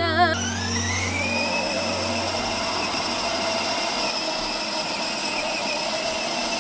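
A vehicle motor starting up: a whine rises in pitch over about the first second, then holds steady over a continuous running noise.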